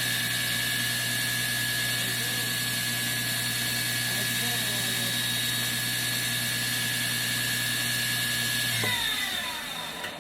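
Electric grinder running steadily with a constant hum, used for grinding a knife bevel. Near the end it is switched off and winds down, its pitch falling as it slows.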